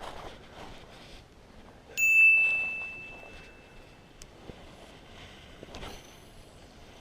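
A single bright, bell-like ding about two seconds in, ringing out and fading over about two seconds, over faint background noise.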